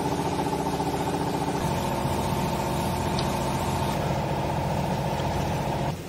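Hydraulic baling press's electric motor and pump running steadily, with a shift in tone about a second and a half in.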